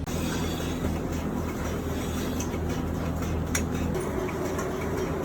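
Steady low mechanical hum of dairy barn machinery, with a few faint clicks.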